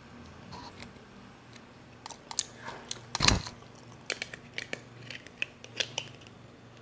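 Faint close-up clicks and crackles of eating and handling things at a table, with one louder knock about three seconds in.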